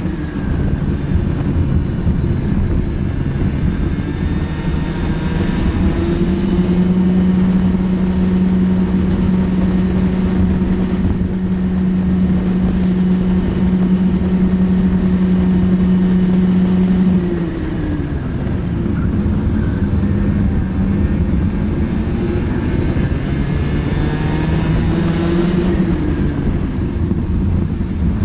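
Racing kart engine at full race pace, heard from on board: its buzz climbs and holds steady at high revs for about ten seconds, then drops sharply as the kart slows for a corner and climbs again on the way out. A constant noisy rumble runs underneath.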